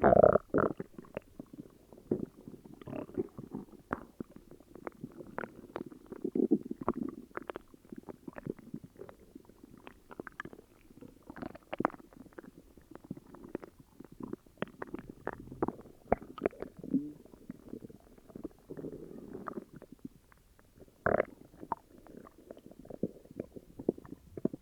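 Upset stomach growling and gurgling: a continuous run of low gurgles broken by many short pops, loudest at the very start and again about 21 seconds in.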